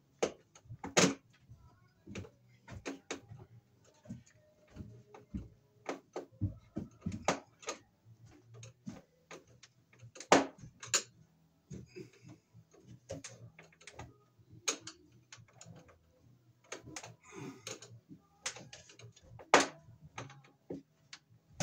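Irregular clicks and taps of a screwdriver and copper wire against a metal breaker panel while a neutral wire is seated and its terminal screw tightened, with a few louder knocks about a second in, midway and near the end.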